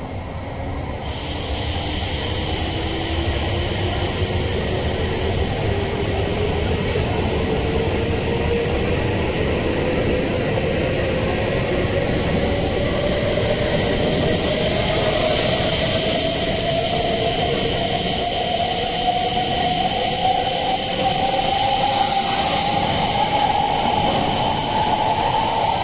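E7 series Shinkansen pulling out and accelerating past, its traction motor whine climbing steadily in pitch as it gathers speed, over the rumble of the wheels on the rails. A thin steady high whine sounds above it, and the whole sound swells about a second in as the train gets moving.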